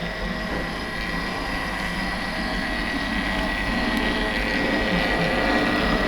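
Model train running along the track: the locomotive's small electric motor gives a steady thin whine over the rumble of wheels on rail, slowly growing louder as it comes closer.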